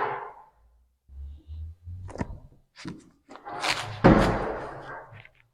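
Workshop handling noises: a few soft thuds and sharp clicks, then a short rush and a loud thunk about four seconds in that dies away.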